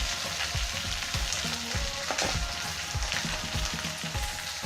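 Cut okra frying in hot oil in a pan, sizzling steadily, while it is stirred, with soft knocks of the spoon against the pan a couple of times a second.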